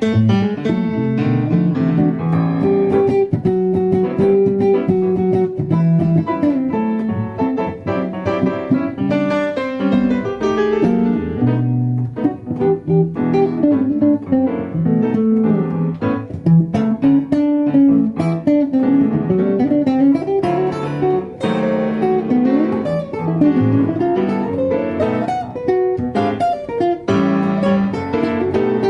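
Guitar playing a blues, a steady run of plucked notes with some notes bending in pitch.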